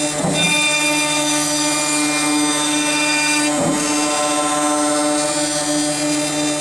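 CNC router spindle running steadily at about 18,000 RPM as a half-inch four-flute carbide end mill faces off a wood board, a steady whine with several pitches. Twice a lower tone dips and rises again as the machine turns around at the end of a pass.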